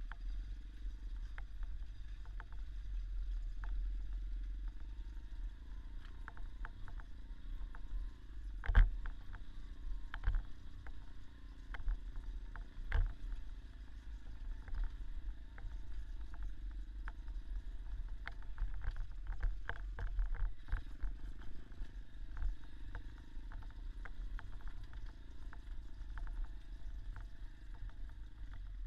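Small dirt-bike engine running while riding off-road, its pitch rising and falling, under a heavy low rumble. Scattered knocks and rattles come through, the loudest about 9 seconds in and another near 13 seconds.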